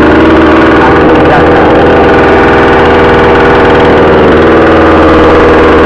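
62cc two-stroke chainsaw idling steadily while it warms up, loud and close.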